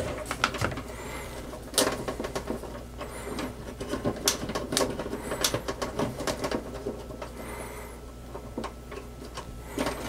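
Hands handling the wiring harness and connectors in a dryer's control panel: scattered light clicks, ticks and wire rustling. Faint high chirps sound now and then in the background.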